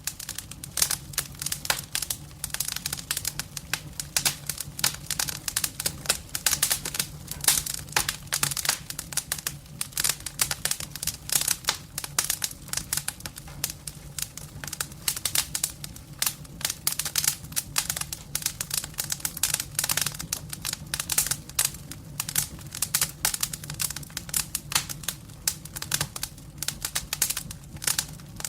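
Campfire crackling: dense, irregular pops and snaps of burning wood over a steady low hum.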